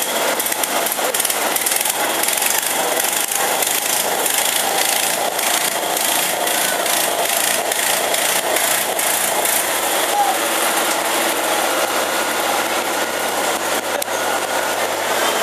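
Loud, steady rushing noise of a fire scene in the rain, with fire-engine motors, spraying water and crowd voices blended together.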